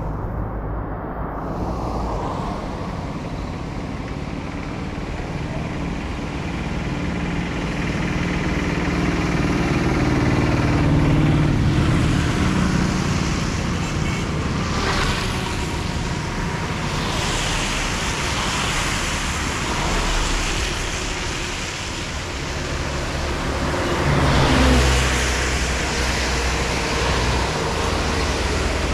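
Motor vehicles passing one after another on a wet road, engine rumble and tyre hiss swelling and fading several times, the loudest pass near the end. Under them runs a steady hiss of rain.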